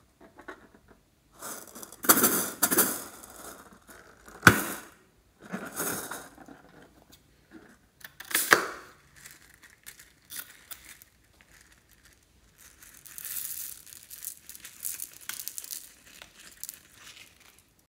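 A rubber balloon packed with small plastic beads is handled and cut open with scissors: rubbery rustling and two sharp snips in the first half. From about two-thirds of the way in, a dense patter of small clicks as the beads pour out into a hand.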